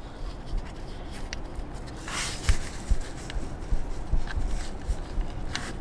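Faint scattered clicks and a brief rustle about two seconds in, from gloved hands working the camshaft position sensor and hand-threading its bolt in the engine bay, over a low steady rumble.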